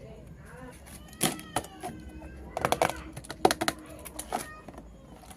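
Pieces of a miniature toy kitchen set being handled: a quick series of clicks and taps, a few with a brief ringing after them.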